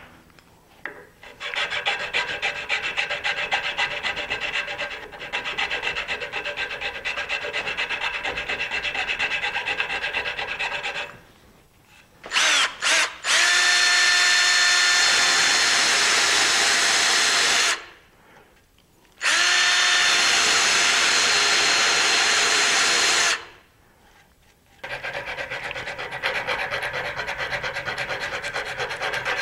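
Oak being shaped by hand with quick, repeated scraping strokes, then a cordless drill with a sanding drum spinning against the wood in two steady runs of about four seconds each, after a couple of brief blips. The hand scraping strokes then resume.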